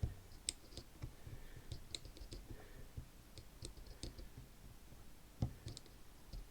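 Faint, irregular clicks from the number wheel of a Squire Snap Lock 210 combination lock being turned step by step while slight pressure is held on the barrel, as the combination is decoded by feel and sound.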